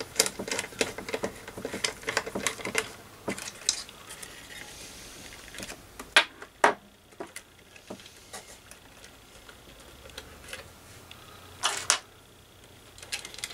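Small metallic clicks and rattles of a nut driver and small nuts on the terminals inside a tube tester's chassis, quick and dense for the first few seconds, then a few scattered clicks and taps.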